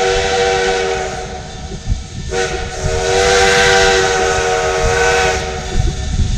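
Steam locomotive's chime whistle, several tones sounding together as a chord with a hiss of steam: one blast ends about two seconds in, and a second, longer blast follows a moment later and stops about a second before the end. A steady low rumble runs underneath.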